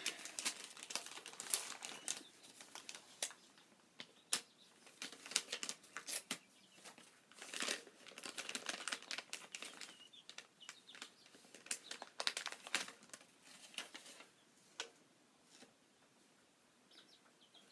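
Paper crinkling and rustling as an envelope and its letter are handled, in irregular crackles and light taps that thin out near the end.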